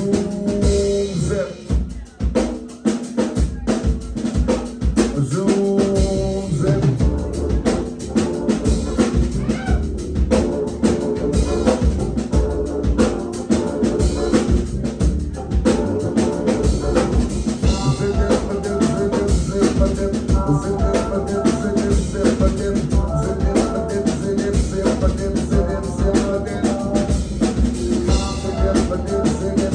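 Live band playing an instrumental passage of a song: a drum kit keeps a steady beat under bass and other pitched instruments, with a brief drop in the music about two seconds in.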